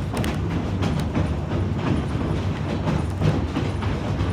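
Ride noise of a narrow-gauge railroad car moving behind a diesel locomotive: a steady low rumble with irregular clicks from the wheels on the track.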